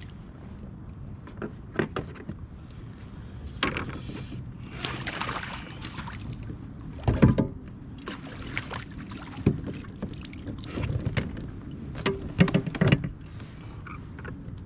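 Knocks, bumps and clatter of gear against the hull of an Old Town Sportsman 106 PDL kayak as a landing net is reached for and lifted. There is a short rushing noise about five seconds in, and the heaviest thumps come about seven seconds in and again around twelve to thirteen seconds in.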